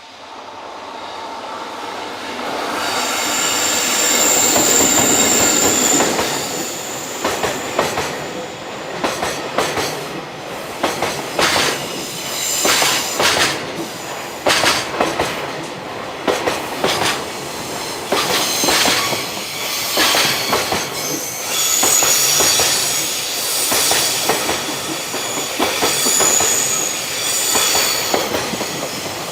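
Freight train passing close by. It swells in over the first few seconds, then its wheels squeal in a high, steady screech twice. In between, the wagons' wheels click over the rail joints in a rapid, uneven series.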